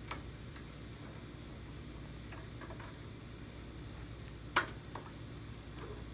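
A few light metallic clicks and knocks from hand tools working on the go-kart's brake linkage, the sharpest about four and a half seconds in, over a steady low hum.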